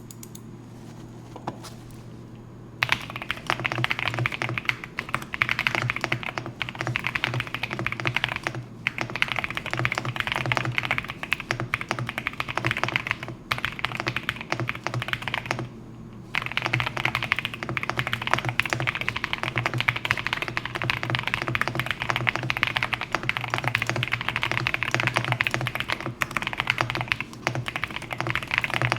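Fast typing on a custom-built mechanical keyboard, a dense patter of key clicks. It starts about three seconds in and breaks off briefly twice in the middle.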